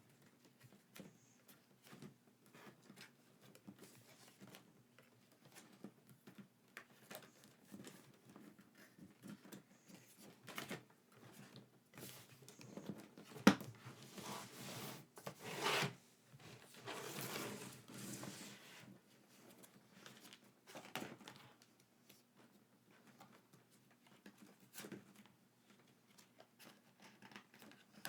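Packaging and merchandise being handled: light rustling and small clicks, with a louder stretch of tearing and crinkling around the middle and one sharp click about halfway through.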